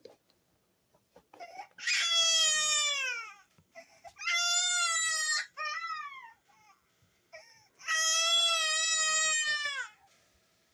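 Cartoon baby crying: three long, high wails, the first and last falling in pitch as they trail off, with short sobs and catching breaths between them.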